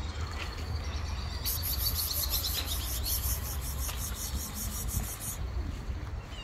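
Outdoor ambience: a steady low rumble with a rapid, high-pitched chirping trill from about a second and a half in until about five seconds.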